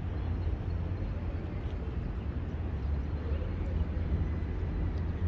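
Steady low rumble of background noise with faint voices in the distance.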